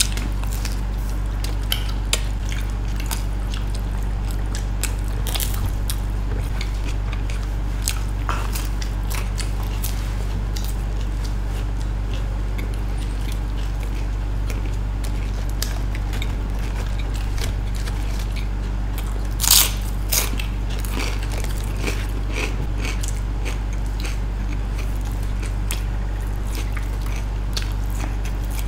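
Close-up eating sounds of people biting into and chewing slices of whole-wheat-crust pizza: scattered short crunches and wet mouth sounds, with one louder crunch about two-thirds of the way through. A steady low hum runs underneath.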